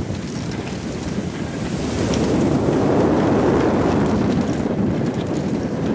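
Wind buffeting the microphone: a steady rushing noise that grows louder about two seconds in.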